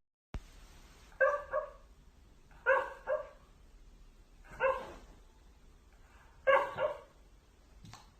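A dog barking five times, single barks spaced one to two seconds apart, two of them in quick succession.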